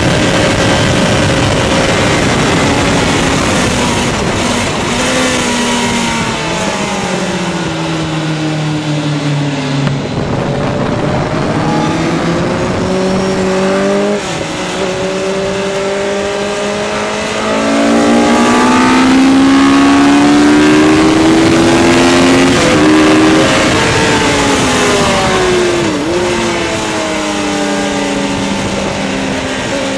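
Onboard sound of a sport motorcycle's engine at speed on a race track: the engine note climbs under acceleration and drops off repeatedly, with short breaks at the gear changes, over a steady rush of wind.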